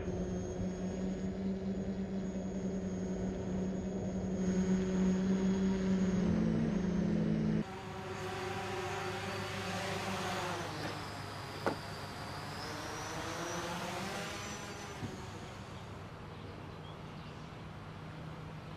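Multirotor delivery drone's propellers and motors humming steadily. About halfway through the sound changes abruptly, then as the drone comes down to land the pitch of the motors dips and rises again, with one sharp click partway through, before the hum settles quieter.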